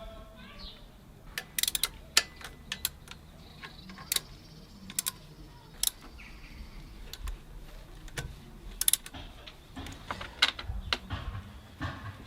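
Scattered light metallic clicks and taps of tools and parts being handled on an engine under repair, some in quick clusters.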